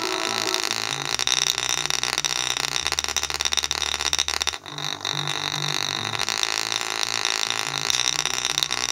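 JBL portable speaker, fed from a phone through an aux cord with the equaliser's bass and bass boost turned all the way up, playing bass-heavy electronic music for a bass test. Deep bass notes step up and down, and the sound drops out briefly about four and a half seconds in.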